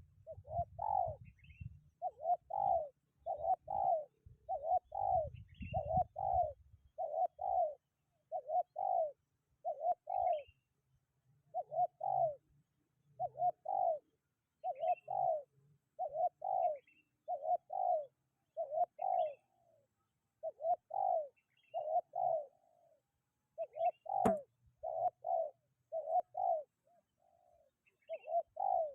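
Spotted dove (tekukur) cooing over and over in a steady run of short coos, about one or two a second, with faint higher chirps. Low wind rumble on the microphone in the first several seconds, and a single sharp click near the end.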